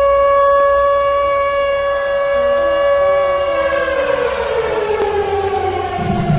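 Civil defense warning siren holding a steady tone, then winding down with falling pitch from about three and a half seconds in. A low rumble starts just before the end.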